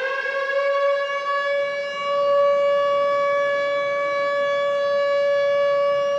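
A siren holding one long steady tone after winding up to pitch, with the fall in pitch starting right at the end.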